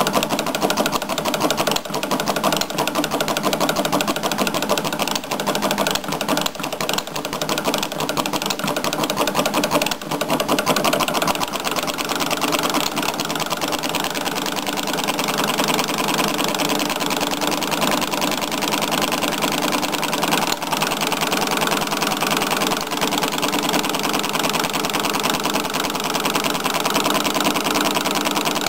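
Atkinson Differential four-stroke model engine, air-cooled and spark-ignited, running steadily with a rapid, even chatter of firing beats, one power stroke every crankshaft revolution.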